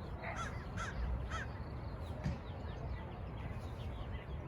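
A bird calling, three harsh calls in quick succession about half a second apart, then a fainter one, over a steady low rumble.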